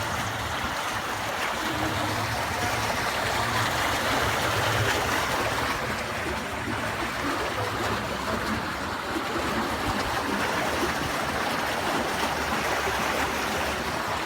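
A mountain river rushing steadily over rocks, with a low rumble underneath.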